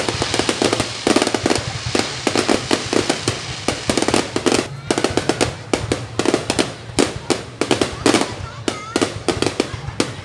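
Fireworks going off in a dense, continuous barrage of bangs and crackles, many reports every second with no break.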